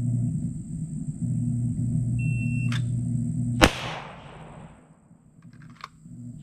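Shot timer's short electronic start beep, followed about a second and a half later by a single loud pistol shot that rings off. A steady low rumble runs under the beep and stops at the shot.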